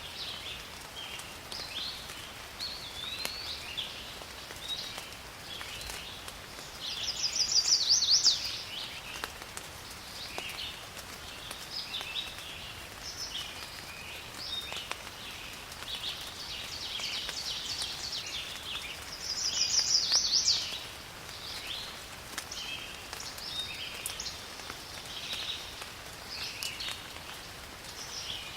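Forest ambience: many birds calling over a faint hiss of rain. Twice, about seven seconds in and again near twenty seconds, one bird gives a louder burst of rapid sweeping notes.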